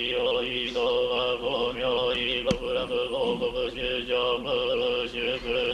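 A man chanting a Buddhist sutra in a steady monotone, the syllables running on at one held pitch. A single sharp click sounds about two and a half seconds in.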